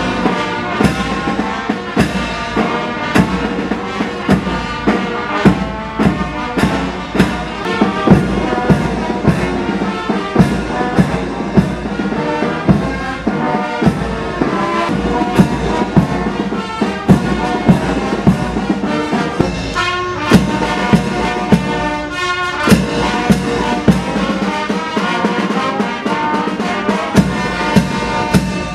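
Military brass band playing, trumpets and trombones over a steady drum beat of roughly one stroke a second.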